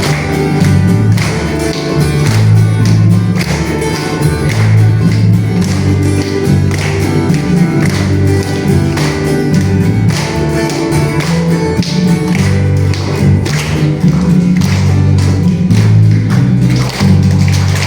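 Music with a heavy, prominent bass line and a steady percussion beat, played loud through a sound system.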